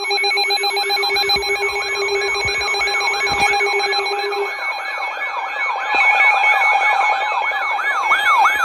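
Layered electronic alert tones of an Emergency Alert System warning: a fast rising-and-falling siren-like wail over steady and pulsing beeps. The wail's sweeps slow down toward the end, and one low steady tone drops out about halfway through.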